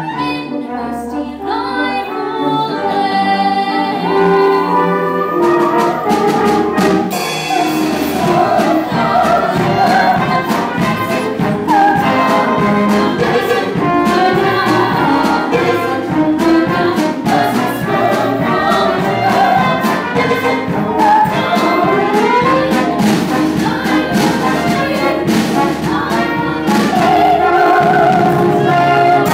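Live pit band with trumpets and trombones playing a fast, busy musical-theatre number, with many sharp percussive hits, and singing voices over it in places.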